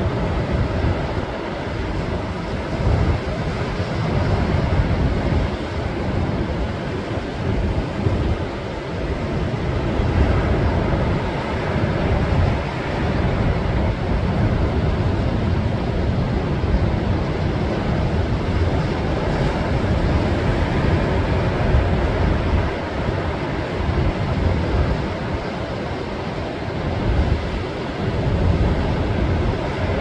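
Rough sea surf breaking over offshore rocks: a loud, steady rush of crashing waves, with wind buffeting the microphone in a low rumble.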